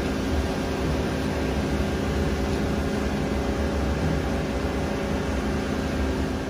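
Steady machinery drone: a constant low hum under an even rushing noise from the workshop's running equipment.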